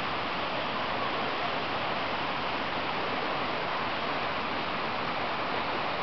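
Multi-tiered waterfall cascading over rock steps: a steady, even rush of falling water.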